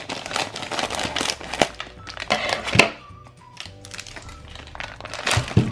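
Clear plastic bag crinkling and rustling in irregular bursts with a few clicks as it is cut open with scissors and a block of kinetic sand is tipped out of it. Background music plays underneath.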